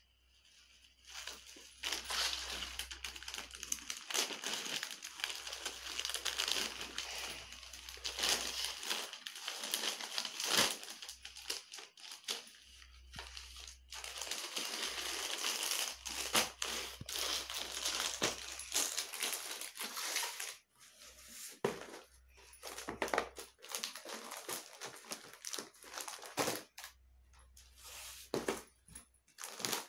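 Crinkling and rustling of the clear plastic packaging on sarees as they are handled and unwrapped, coming and going in spells with short clicks and knocks of the cardboard saree boxes.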